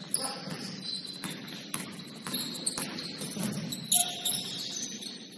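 Basketball shoes squeaking on the gym court in short, high chirps, with a few sharp knocks and a low murmur from the hall.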